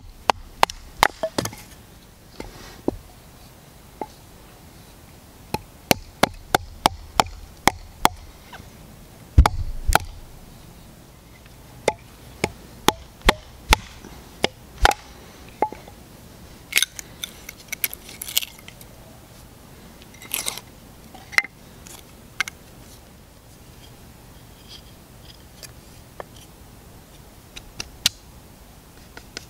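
A wooden baton striking the spine of a fixed-blade knife to split a short log on a stump: a series of sharp wooden knocks in quick runs, the heaviest a deep thud about nine seconds in. Fewer and lighter knocks follow later.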